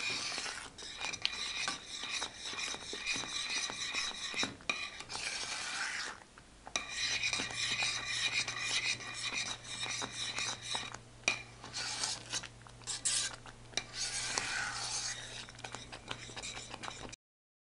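Metal spoon stirring and scraping around the bottom of a stainless steel pan of thick, reducing rice-milk condensed milk, a continuous rasping scrape with small clicks, kept up so the mixture doesn't stick. The scraping breaks off briefly about six and a half seconds in and cuts off suddenly just before the end.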